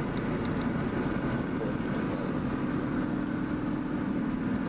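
Steady road and engine noise heard from inside a car cruising along a highway, a constant low hum over tyre rumble.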